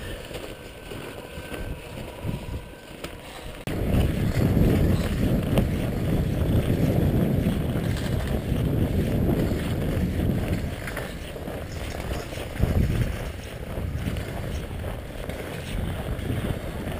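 Wind buffeting the camera's microphone, a low rumble that turns suddenly much louder about four seconds in and stays loud.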